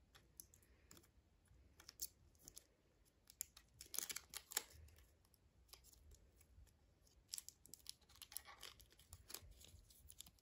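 Near silence with faint, scattered rustles and light clicks, a few slightly louder about four seconds in and again a little before the end.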